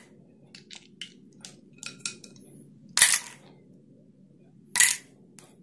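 Ice cubes being picked by hand out of a glass bowl of freshly set butter and dropped into a plastic bowl: a few faint clicks, with two louder clatters about three seconds in and near the end.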